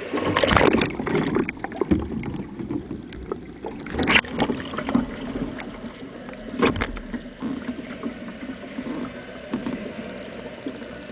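Kayak paddle strokes splashing pool water right beside the deck-mounted microphone, with three loud splashes about half a second, four seconds and six and a half seconds in, and smaller dips and drips between.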